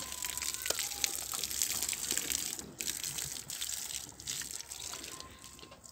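Water gushing and splashing in a steady crackly rush.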